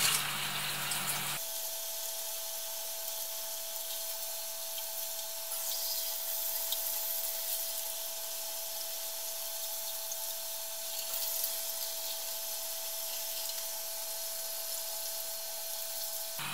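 Kitchen tap running steadily into a stainless-steel sink and over buckwheat being rinsed in a bowl, with a thin steady tone underneath.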